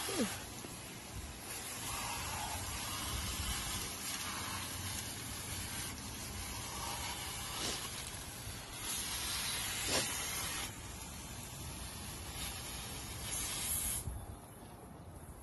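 Water spraying hard from the end of a hand-held hose onto grass, a steady hiss carried by a pump, which thins out near the end.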